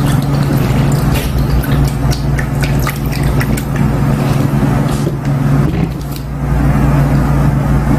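A steady low mechanical hum over a wash of noise, with several small clinks and taps of tableware, most of them in the first half.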